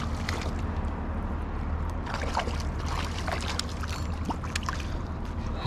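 A hooked trout splashing and thrashing at the surface of shallow water by the bank, with a run of sharp splashes from about two seconds in, over a steady low rumble.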